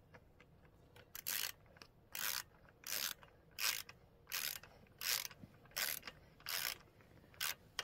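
Socket ratchet wrench clicking in short, even strokes, about ten back-swings roughly two-thirds of a second apart, as a bolt is worked on the dirt bike.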